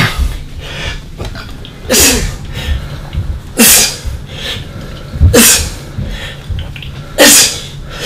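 A man's forceful breaths out, each a sharp hiss with a short falling grunt, one with every lift of a weight, coming about every two seconds.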